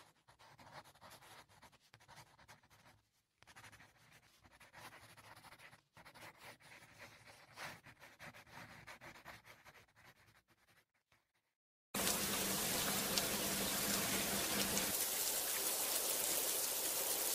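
Faint scratching of a marker pen drawing on paper, in short irregular strokes with brief pauses. About twelve seconds in, a sudden loud, steady hiss sets in and runs on, with a low hum under it for the first few seconds.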